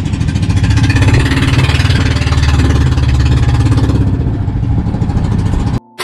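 Outrigger boat's engine running steadily under way, a loud low hum with wind on the microphone; the sound cuts off abruptly just before the end.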